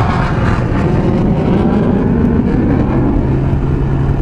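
Yamaha YZF R6 inline-four sportbike riding on the road, its engine heard under heavy wind rush on the mounted camera's microphone. The engine pitch shifts, then settles into a steady note about three seconds in.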